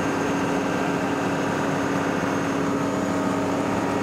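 The Burgh Island sea tractor's engine running steadily, a constant hum that does not change.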